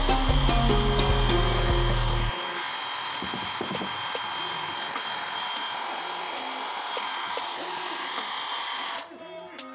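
Handheld electric hair dryer blowing a steady rushing hiss, switched off or cut near the end. Background music with a heavy bass beat plays over the first couple of seconds.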